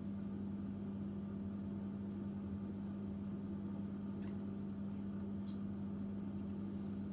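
Steady low hum of a small motor, holding one pitch, with two faint clicks about four and five and a half seconds in.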